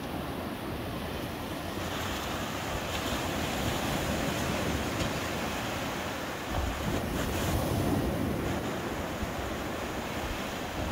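Small Black Sea waves breaking and washing up the sand at the shoreline, a continuous hissing surf that swells and ebbs as each wave comes in.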